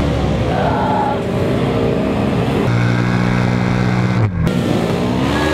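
Engine of a mud-racing side-by-side (UTV) running at high revs. Its pitch holds steady, dips sharply about four seconds in, then climbs again near the end.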